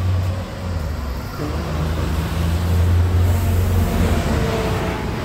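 City bus driving past close by in street traffic, its engine a low steady drone that swells about two to four seconds in.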